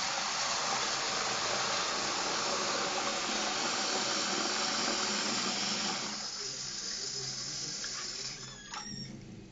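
Tap water running in a steady stream into a plastic cup of worms, rinsing them. The flow sounds softer about six seconds in and stops near the end.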